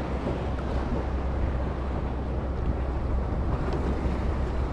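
A light sea breeze buffeting the microphone as a steady low rumble, over the wash of sea water around a kayak riding a swell.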